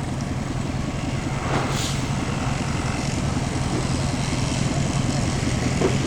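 Diesel locomotive engine running steadily, a low hum under a wash of mechanical noise, with a brief hiss-like swell about a second and a half in.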